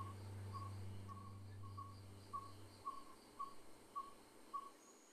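Faint, short calls of one steady pitch repeating about twice a second, from an animal, over a low hum that fades out about halfway through.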